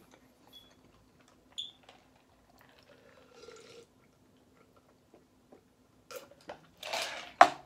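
Close-up mouth sounds of eating and drinking: quiet chewing, then sipping and swallowing a drink from a plastic cup. Near the end comes a loud breathy exhale followed by a sharp knock.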